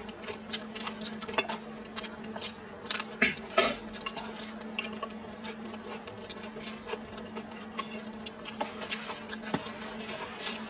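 Close-up eating sounds: chewing and lip smacks over a mouthful of rice, with irregular clicks of wooden chopsticks against a stainless steel bowl, a couple of louder ones about three seconds in. A steady low hum runs underneath.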